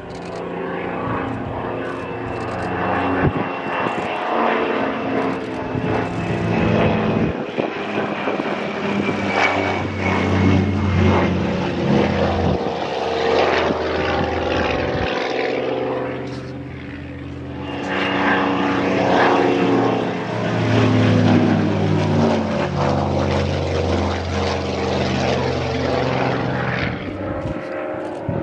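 Propeller-driven aerobatic aircraft's engine running overhead, its pitch rising and falling as the aeroplane manoeuvres, dropping away briefly about halfway through before swelling again.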